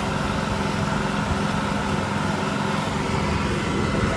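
A John Deere tractor's diesel engine running steadily under way on the road, with an even hum.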